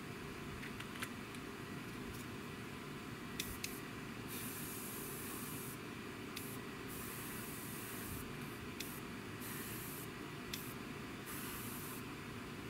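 Airbrush spraying in short bursts: from about four seconds in, a high hiss of air and paint switches on and off several times as the trigger is worked, over a steady background hum. A few light clicks come between the bursts.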